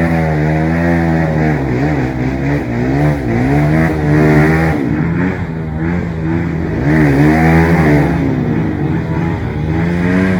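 Trail dirt-bike engine revving up and down in repeated surges.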